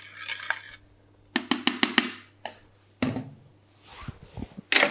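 Kitchen clatter of utensils and crockery: a quick run of sharp, ringing knocks about one and a half seconds in, a single click, a dull thump about three seconds in, and a louder knock near the end.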